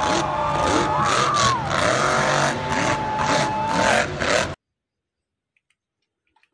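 Monster truck engine revving hard in a stadium arena, its pitch rising and falling as the truck stands up on its rear wheels and drives off, over crowd noise. The sound cuts off suddenly about four and a half seconds in, leaving near silence.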